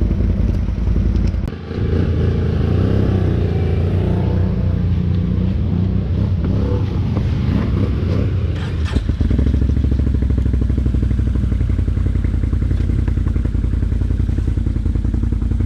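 ATV engine running under load, its pitch dipping briefly about a second and a half in and wavering up and down through the first half. A sharp knock comes just before the middle, then the engine runs at a steady pitch.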